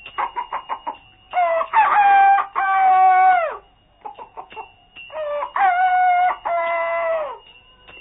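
A rooster crowing twice, each crow a long call that drops in pitch at its end, after a quick run of short clucks.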